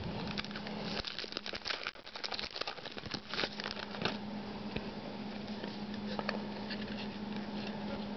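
Trading cards being handled and flipped through by hand: a quick run of soft clicks and flicks of card stock for a few seconds, thinning out to occasional clicks, over a steady low hum.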